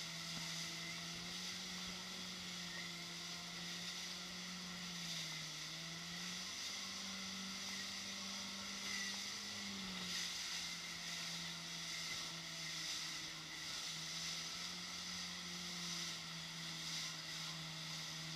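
Motorboat engine running steadily under way while towing an inflatable tube. Its pitch dips briefly, then rises for a few seconds around the middle before settling back. A steady rush of wake water and wind sounds over it.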